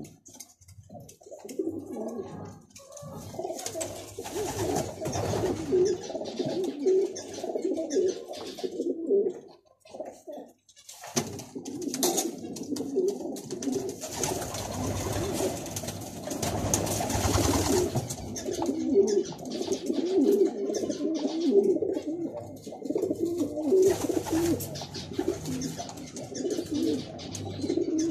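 Racing pigeon cooing over and over in low, rolling coos, with a short break about ten seconds in.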